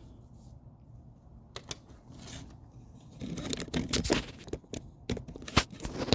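Handling noise from fiber cement board pieces: a run of knocks and clicks with some scraping, busiest in the second half, with one sharper knock about five and a half seconds in.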